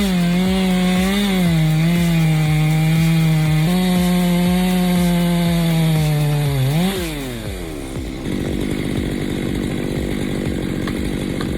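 Chainsaw running at high revs, a steady whine that wavers slightly; about seven seconds in the pitch drops and swoops back up, then gives way to a rougher, lower sound.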